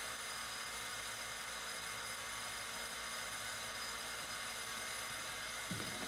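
Steady rushing noise with a faint low hum, and one brief low knock near the end.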